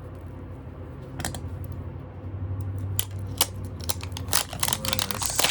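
Plastic packaging being crinkled and torn open by hand: scattered sharp crackles that turn into a dense run of crinkling over the last couple of seconds.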